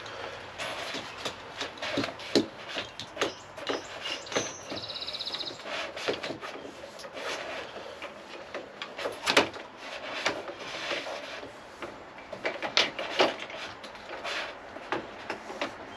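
Hands and tools working inside the stern compartment of a fiberglass boat: irregular knocks, clunks and rubbing. A brief rapid ratcheting buzz comes about five seconds in.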